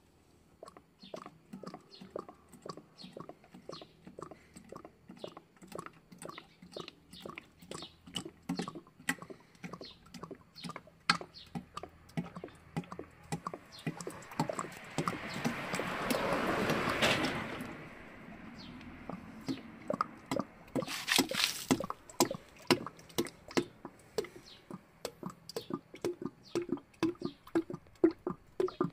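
Engine oil glugging and splashing as it is poured from a plastic jug into a plastic container, a quick irregular patter of glugs with a steadier, louder pour for a few seconds about halfway through.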